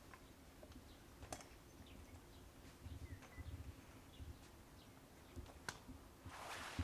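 Quiet outdoor ambience with a few faint bird chirps and scattered soft clicks; the background noise rises just before the end.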